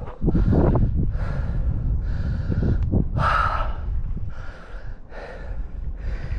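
A hiker breathing hard, a heavy breath about every second, with wind rumbling on the microphone.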